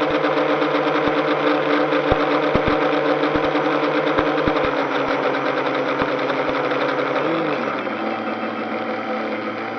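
Multirotor drone's electric motors and propellers whining steadily, with short irregular knocks, while the drone descends in wind. About seven seconds in the motor pitch drops and the sound eases off as the throttle comes down toward zero.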